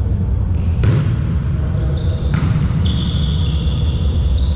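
A volleyball being struck in a sports hall: three sharp smacks, about one second, two and a third seconds and nearly three seconds in. They sit over a steady low rumble of the hall, with thin high squeaky tones.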